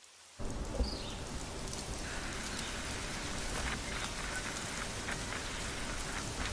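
Steady rain falling on hard surfaces, a sound-effect bed that comes in suddenly about half a second in, with scattered louder drips.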